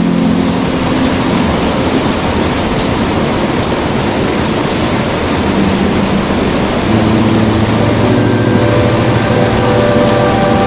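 Waterfall, a steady loud rush of falling water. Faint held tones at several pitches join in from about halfway through.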